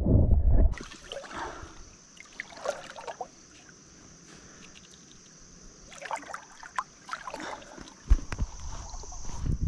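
River water splashing and trickling in small bursts around a pontoon boat, under a steady high-pitched hiss, with a sharp thump about eight seconds in. It opens with a loud, muffled gurgling rumble that cuts off abruptly under a second in.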